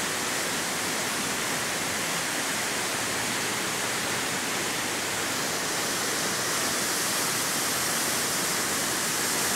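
Steady rushing of seawater in a rocky cliff cave, an even wash of noise that does not rise or fall.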